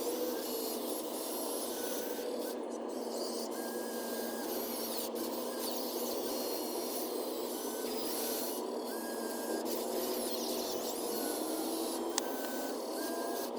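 Sped-up timelapse sound of RC construction machines working dirt: a steady scraping, rasping noise with short high whines that come and go several times.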